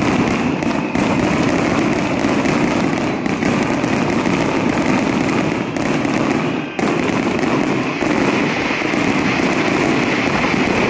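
Aerial firework shells bursting in a dense, rapid barrage, the bangs overlapping into a near-continuous rumble and crackle, with a brief let-up about seven seconds in.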